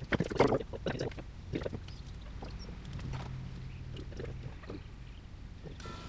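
Irregular knocks and clatter of objects being handled, loudest in the first second or two, then sparser, over a steady low hum.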